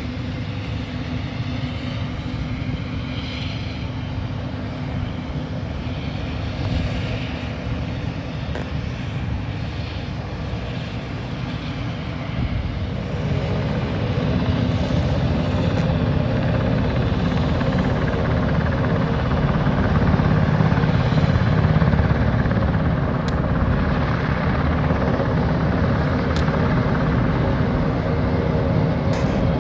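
UH-60 Black Hawk helicopters running on the ground, their twin turboshaft engines and rotors making a steady rumble with a whine. About halfway through it grows louder and a steadier hum joins in.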